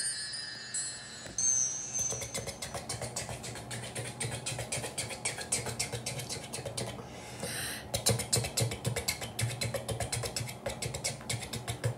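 Rapid, irregular clicking, several clicks a second, with a short hiss about seven seconds in.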